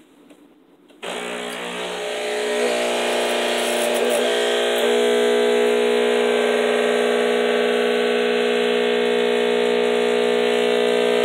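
Breville Barista espresso machine's steam wand running through a descaling cycle. A steady hiss of steam sits over a buzzing machine hum; it starts about a second in, grows louder over the next few seconds, then holds steady and cuts off near the end.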